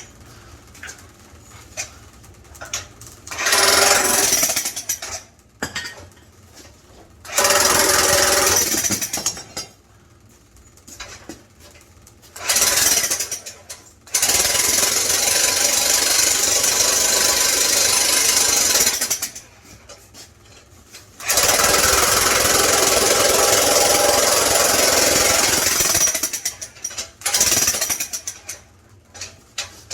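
Jackhammer chiselling into a cast-iron boiler in bursts, the two longest about five seconds each, with short pauses between.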